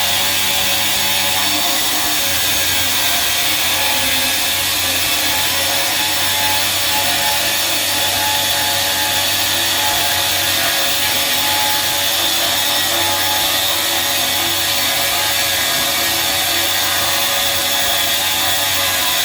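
A power tool running steadily without a break, a harsh continuous hiss over a faint steady hum.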